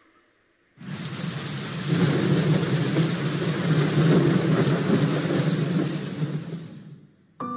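Audience applauding, starting about a second in and fading out after about six seconds; piano music begins right at the end.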